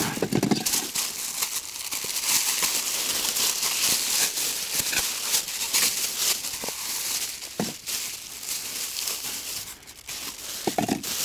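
Irregular crinkling and rustling handling noise with scattered light clicks, as brand-new foam duck decoys are readied for the water.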